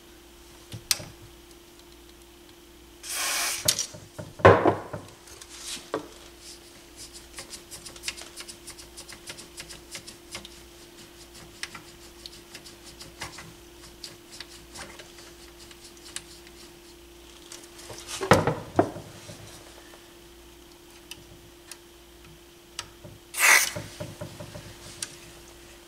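Short hisses of aerosol contact cleaner sprayed into the receiver's potentiometers, twice: about three seconds in and near the end. Between them come knocks and many small clicks from handling the chassis and controls, over a faint steady hum.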